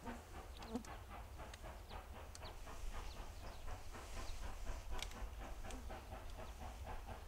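South African Railways class 25NC steam locomotive working hard in the distance: rapid, even exhaust chuffs, about five a second.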